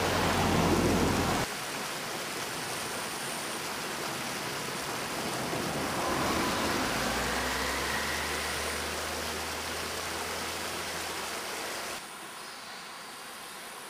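Shallow stream rushing steadily over a stony bed, dropping suddenly in level twice. About halfway through, a car passes on a nearby road, a low rumble lasting a few seconds.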